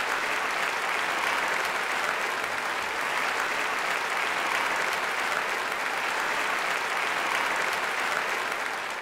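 Applause from a group of people clapping steadily, fading out near the end.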